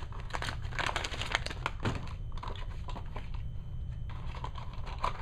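Clear plastic packaging crinkling and clicking as it is handled: a quick run of small crackles and clicks for about the first two seconds, then sparser ones.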